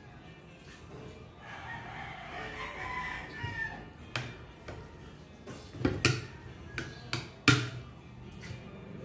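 A rooster crows once, a drawn-out call lasting about two seconds, starting about a second and a half in. After it, a fork and spoon clink and scrape against a ceramic plate several times, the loudest clink near the end.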